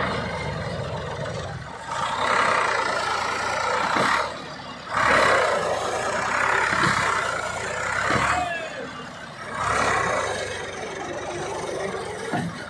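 Tractor diesel engine labouring hard under a heavy trolley load in mud, the front wheels lifting. It comes in three rough high-rev surges with brief drops in revs between them.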